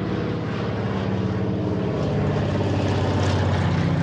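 Propeller-driven airplane flying low overhead, its steady engine drone getting louder toward the end.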